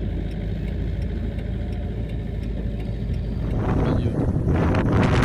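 A steady low rumble, then strong wind gusts rushing in about three and a half seconds in, loud and buffeting the microphone.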